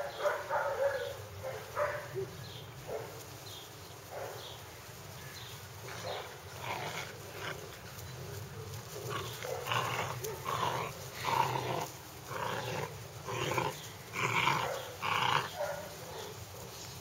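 Litter of Hungarian Vizsla puppies growling in play while tugging on a rope together, in a string of short bursts: a few at first, then, after a lull, coming thicker over the second half.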